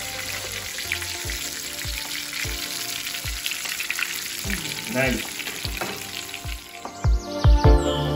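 Basa fillet frying in bubbling oil in a cast iron skillet: dense sizzling and crackling. About seven seconds in, music with a regular thumping beat comes in.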